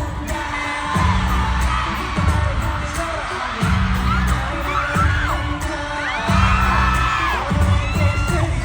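K-pop song played loud through a concert sound system, with a heavy bass beat recurring about every second and a half and singing over it.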